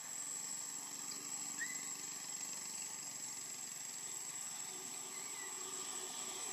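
Steady outdoor background noise with a continuous thin high-pitched tone, broken by two faint short chirps, one about a second and a half in and one near five seconds.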